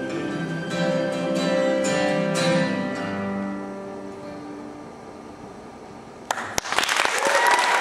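A song for voices and acoustic guitar ends: held sung notes and a few strummed guitar chords that die away over several seconds. About six seconds in, audience applause breaks out suddenly.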